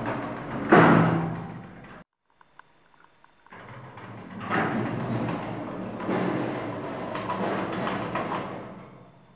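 Elevator's automatic sliding doors shutting with a loud bang about a second in, then, after a short quiet pause, sliding open again over about five seconds.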